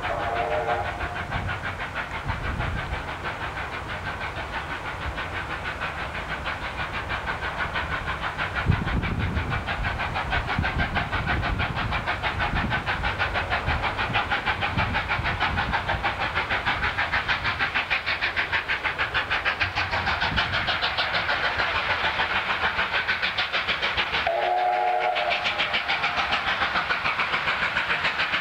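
Steam locomotive 3801, a 38 class Pacific, working hard as it approaches: its exhaust beats grow louder and come in a steady rhythm. It gives a short whistle blast at the start and another, longer blast about 24 seconds in.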